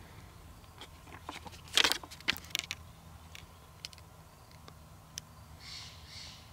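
Handling noise on a camera: a quick run of clicks and knocks about two seconds in, the loudest near the middle of the run, then a few lone ticks. Near the end come two short breaths close to the microphone.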